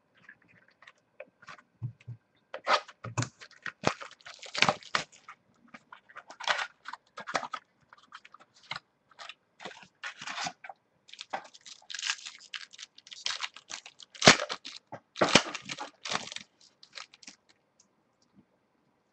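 Baseball card pack wrapper crinkling and tearing as it is opened by hand: irregular crackles that start a few seconds in, are loudest a little past the middle, and die away near the end.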